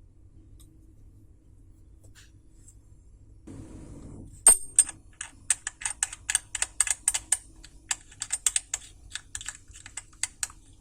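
A run of quick, irregular sharp clicks, several a second, starting about four seconds in after a quiet stretch with only a low hum.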